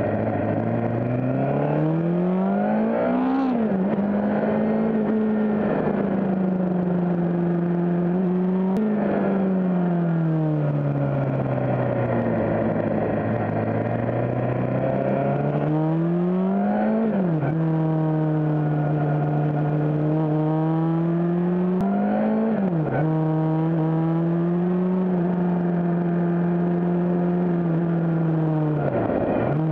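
Suzuki GSX-R600's inline-four engine under way through tight bends. The revs climb and drop sharply at about four upshifts, with one stretch of revs falling slowly as the bike slows.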